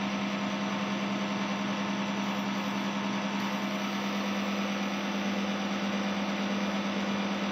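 Electric suction pump running steadily, a low hum with a hiss over it, while a suction catheter clears a baby's nose and mouth.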